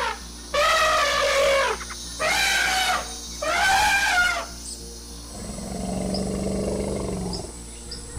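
Animal-call sound effects for animated woolly mammoths: three loud drawn-out calls, each swooping up then down in pitch, then a lower, rougher rumbling call.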